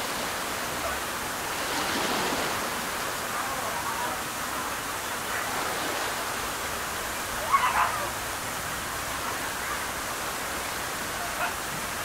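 Steady rush of running water into a koi pond, with a brief sharp sound about seven and a half seconds in.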